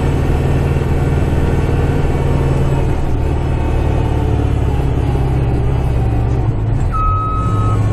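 Kubota tractor's diesel engine running steadily, heard from inside the cab. About seven seconds in, a high electronic beep starts, the first beep of the tractor's reversing alarm.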